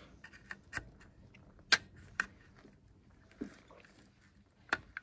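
A handful of sharp clicks and light taps, spread out, from tools and the battery pack's plastic and metal parts being handled.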